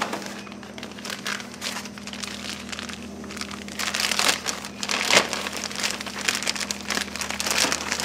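Plastic packaging bag crinkling and rustling as a new replacement latch cable is pulled out of it. The crackle grows busier and louder about halfway through.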